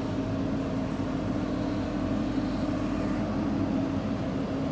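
JCB 3DX backhoe loader's diesel engine running steadily under work, a constant drone with no breaks.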